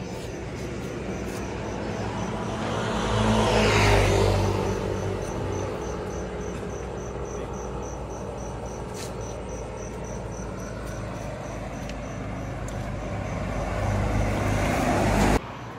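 A vehicle passing on the road, swelling to its loudest about four seconds in with a falling pitch as it goes by. Another vehicle approaches near the end and is cut off suddenly. Crickets chirp steadily, in a fast, even pulse.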